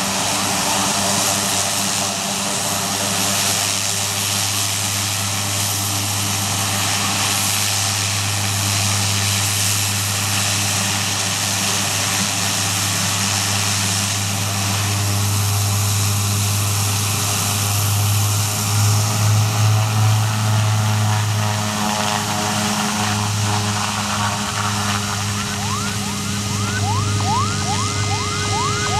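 CASA C-212 Aviocar's twin Garrett TPE331 turboprops running as it taxis: a steady low drone under a high whistling hiss, briefly pulsing about two-thirds of the way through. Near the end a rapid series of short rising chirps joins in.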